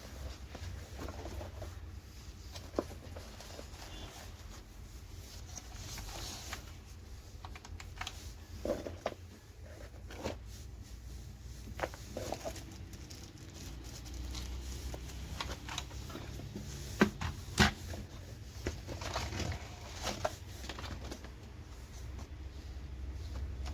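Unboxing handling sounds: scattered taps, clicks and rustling as the packaging and keyboard are handled, over a steady low hum, with two sharper knocks about three-quarters of the way through.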